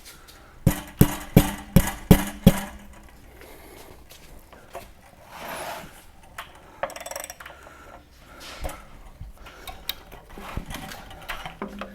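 Six sharp metal-on-metal strikes in quick succession, about three a second, each ringing briefly: tools working on the water heater's anode rod fitting to break it loose. After them come a few quieter knocks and clatters.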